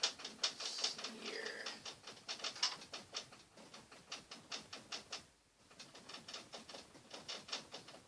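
Bristle paintbrush dabbing oil paint onto a stretched canvas: quick, irregular soft taps, several a second, with a short pause a little past five seconds in.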